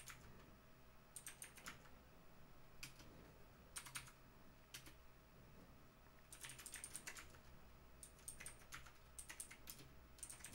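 Faint computer keyboard typing: short runs of keystrokes with pauses between them.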